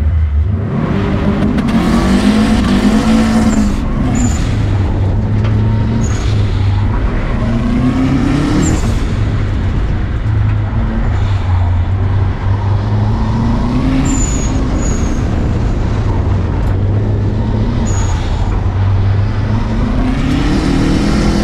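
Subaru WRX rally car's turbocharged flat-four engine being driven hard. Its pitch climbs under throttle and then drops away, about every five or six seconds, over tyre noise on loose dirt.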